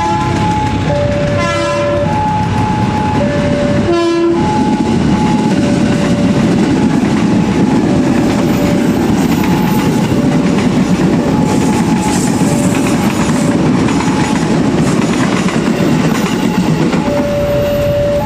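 Wantech level-crossing alarm sounding its two-tone warning, a higher and a lower note alternating about once a second. Over it, an electric KRL commuter train gives two short horn blasts in the first few seconds, then passes with a steady rumble and wheel clatter on the rails.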